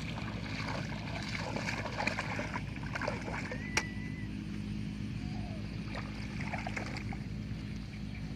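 A small boat motor running steadily, with scattered light splashes and knocks and a brief high whistle about four seconds in.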